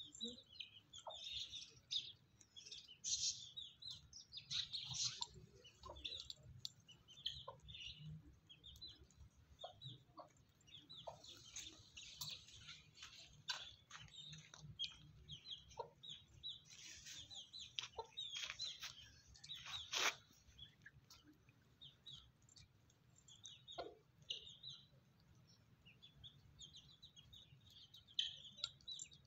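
Domestic chickens clucking, mixed with a constant chatter of high, short bird chirps that thins out for a few seconds after about 21 s.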